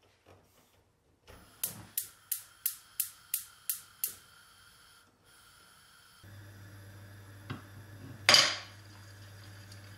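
Gas hob's spark igniter clicking about three times a second, eight clicks, until the burner lights. A few seconds later comes a brief, loud sizzle as a heated steel vise part is dipped into a pot of oil.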